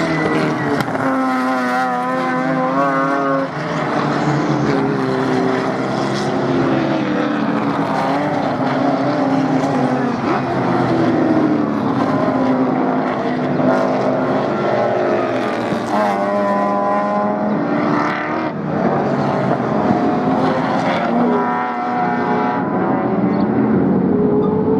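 Several race car engines running hard, their pitch rising and falling as they accelerate and change gear, with more than one car heard at once.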